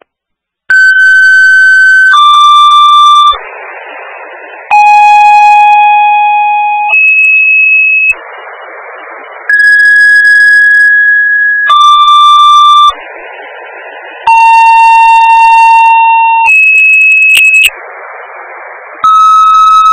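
Fire dispatch paging tones over the radio: a run of two-tone pages, each a pair of steady beeps at different pitches, toning out several stations one after another. Short bursts of radio hiss separate the pages. A new pair of tones starts near the end.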